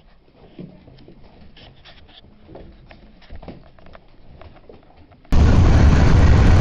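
Faint scuffling and small noises from beagle puppies on a wooden floor, then about five seconds in a sudden loud rush of wind and road noise through the open window of a moving car.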